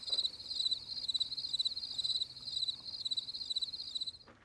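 Cricket chirping: a rapid series of high, trilled chirps that starts and cuts off abruptly, like a dropped-in "crickets" sound effect.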